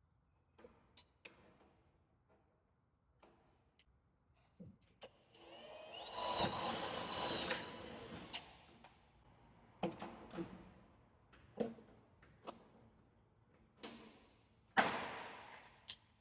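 A power drill runs for about three seconds as it bores a hole through the metal cladding sheet, followed by a series of sharp clicks and snaps from riveting the sheet down, the loudest near the end.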